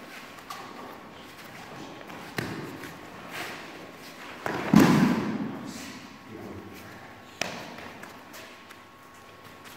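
Thuds, scuffs and knocks of two barefoot karateka grappling in a clinch on foam mats. There are several separate knocks, and the loudest thud comes about halfway through with an echo trailing after it.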